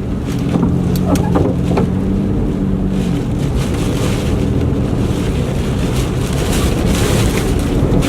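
Hurricane-force wind blowing hard and buffeting the microphone. A steady low hum runs under it and fades out about three seconds in.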